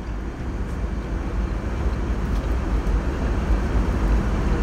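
Airbus A320 cabin noise in cruise flight: a steady rushing sound, heaviest in the low end.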